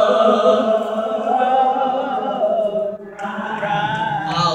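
A cappella singing of an old gospel song, slow and drawn out: one long held note, then a new phrase begins about three seconds in.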